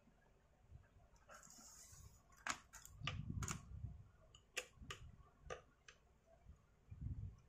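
Screwdriver and plastic housing parts of a Stihl MS250 chainsaw clicking and tapping as a top-cover screw is driven in: about eight sharp clicks over three or four seconds, beginning about two and a half seconds in, with soft handling bumps.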